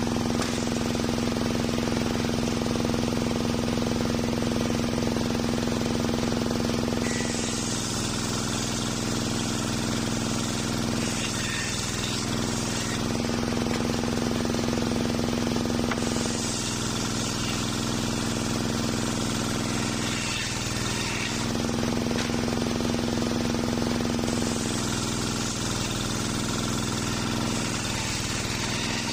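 Homemade engine-driven circular saw bench running with a steady drone, making three rip cuts through waru (sea hibiscus) timber, each a few seconds long. Each cut adds a high hiss of the blade in the wood over the engine, and the engine note dips briefly near the end of the first two cuts as it takes the load.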